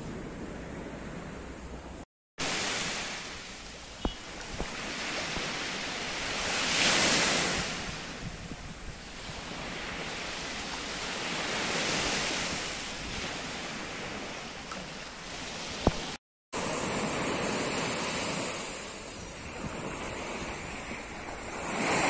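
Small waves breaking and washing up a beach, the surf swelling and fading every few seconds, with wind on the microphone. The sound drops out for a moment twice.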